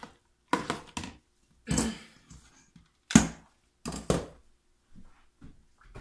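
A metal spoon scraping and knocking inside a plastic container of thick hot process soap paste, then the clatter of a stick blender being picked up and its metal shaft pulled off the motor: a series of short knocks and scrapes, the loudest about three seconds in. The blender is not running.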